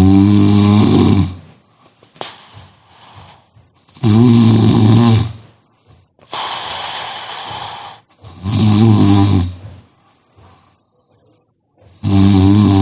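A person snoring loudly: four deep snores about a second long, roughly four seconds apart, with a quieter hissing breath after the second.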